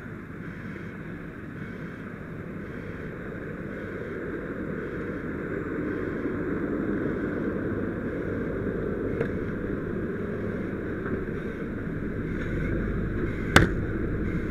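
Fire engine running steadily at the fireground with a hose line attached, a low rumble that grows louder over the first several seconds as it is approached. A single sharp knock comes near the end.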